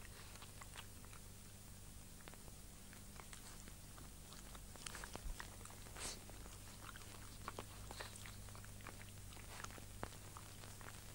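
Faint background noise of an old film soundtrack: a steady low hum and hiss with scattered crackling clicks, which grow denser and louder about midway.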